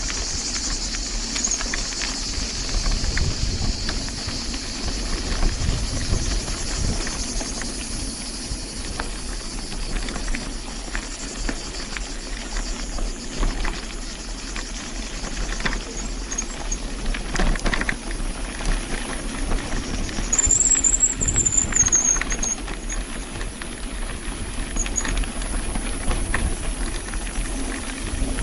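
Bicycle ride over a rough track: wind on the microphone with frequent rattles and knocks from the bumps, and a brief high squeal about twenty seconds in.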